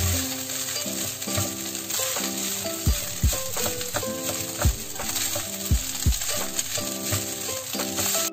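Fried rice sizzling in a wok while a slotted spatula stirs and scrapes through it. Background music with a melody and deep kick-drum beats plays over it.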